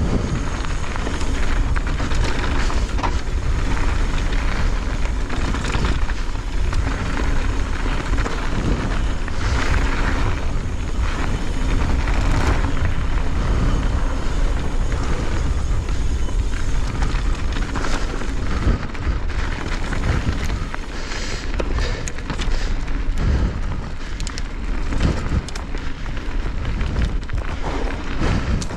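Pivot Firebird full-suspension mountain bike descending a dirt trail at speed, heard from an action camera: wind rumble on the microphone, with frequent knocks and clatter as the bike goes over bumps.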